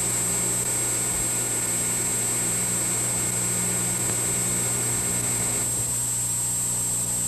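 Steady electrical hum and hiss of an old analog videotape soundtrack, with no other sound; the hiss drops a little about six seconds in.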